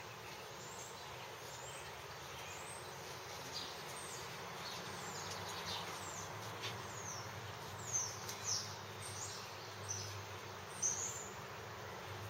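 Small birds chirping in short, high, downward-sweeping calls, more often in the second half, over a steady outdoor hiss.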